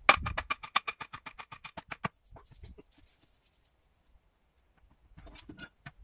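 An axe's back knocking a wooden support stake into the ground: a rapid, even run of about ten sharp knocks a second over about two seconds, loud at first and fading. A few fainter knocks follow near the end.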